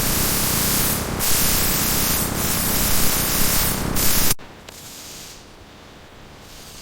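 Loud steady hissing spray with three short breaks, cut off abruptly about four and a half seconds in, leaving a faint hiss.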